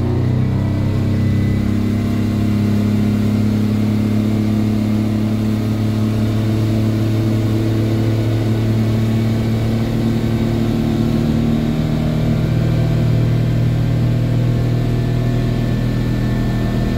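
Yamaha 200 hp outboard engine pulling the boat up to speed, its revs climbing steadily from about 3,100 to 4,700 rpm. It is still turning the old 15 x 17 prop, which holds the engine's revs below its sweet spot.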